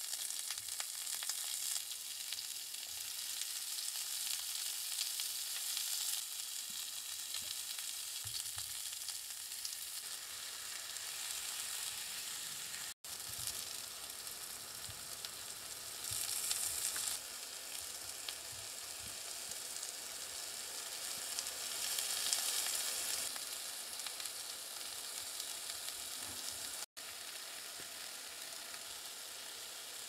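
Beef steaks and vegetables sizzling on a hot round griddle pan, a steady frying hiss that swells louder twice and drops out for an instant twice.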